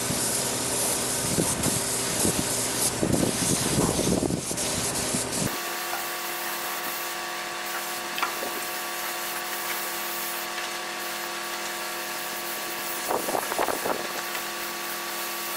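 Pressure-pot spray gun hissing steadily as compressed air sprays primer. Wind rumbles on the microphone for the first five seconds or so. After that a steady mechanical hum sits under the hiss.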